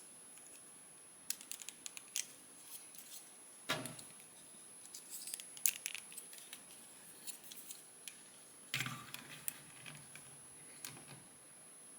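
Plastic parts of a Bandai Pokémon snap-fit model kit being handled as the legs are pressed onto the body: faint scattered clicks and taps, with a soft knock about 4 s in and another near 9 s.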